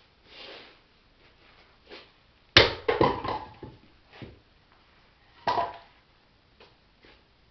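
A 2.5 kg splitting maul strikes a log with a sharp crack, followed by a quick run of wooden knocks as the pieces clatter down. About three seconds later comes another loud knock of wood.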